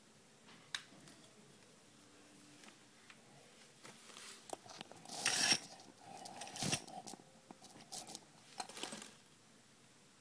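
Light handling noises: a faint click near the start, then several seconds of scraping and rustling with a few louder scrapes, the loudest about halfway through.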